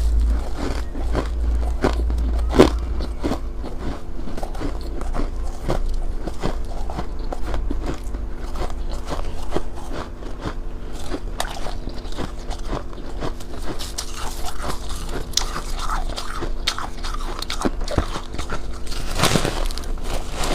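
Ice being bitten and chewed close to the microphone: irregular sharp cracks and crunches. There is a loud crack about two and a half seconds in and a longer crunch near the end, over a faint steady hum.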